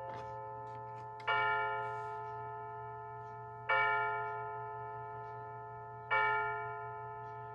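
Battery-powered quartz clock movement striking the hour through its small speaker: three bell-like strokes about two and a half seconds apart, each ringing out and slowly fading, as part of a seven-stroke hour count.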